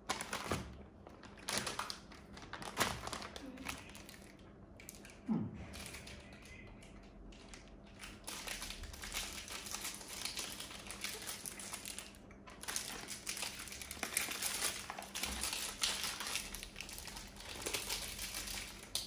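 Crinkly plastic sweet wrappers rustling and crackling as Yupi gummy packets are handled, in separate bursts at first and almost without a break from about eight seconds in.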